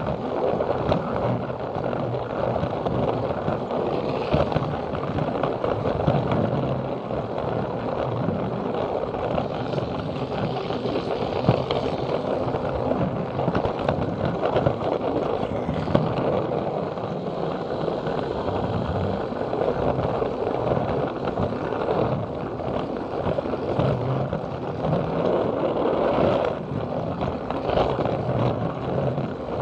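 Plarail battery-powered toy train running on plastic track, its small motor and gears whirring and its wheels rattling steadily over the track, picked up close by a camera riding on the train. A few brief clicks stand out, likely track joints.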